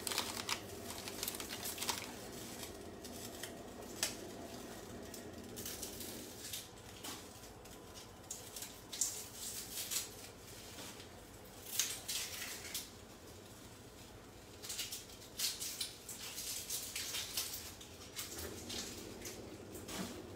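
An onion being peeled by hand: scattered papery rustles and light crackles in irregular clusters.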